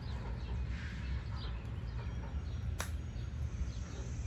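A golf club strikes the ball once on a short chip shot: a single sharp click a little under three seconds in. Birds chirp faintly over a steady low rumble.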